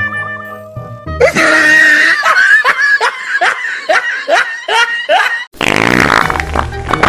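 Prank fart sound effects and laughter as the music cuts out, ending in a long raspy fart sound.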